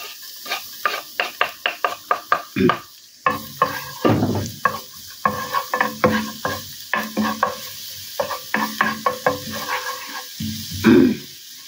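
Minced garlic sizzling in hot cooking oil in a frying pan, with a wooden spoon scraping and tapping against the pan as it is stirred, in many short repeated strokes.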